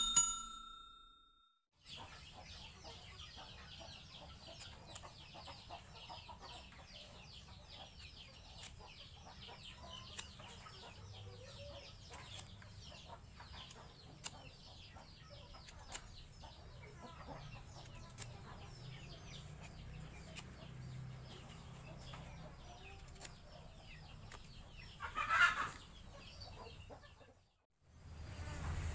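Chickens clucking in the background, with a rooster crowing once, loudly, near the end.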